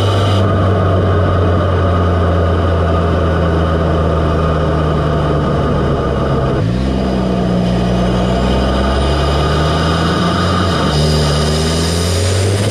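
Audi S3's turbocharged four-cylinder engine heard up close through an APR carbon fibre open cone-filter intake, with the induction sound of the open filter. Held at steady raised revs, then the revs dip and climb again a little past halfway, ease off, and rise once more near the end.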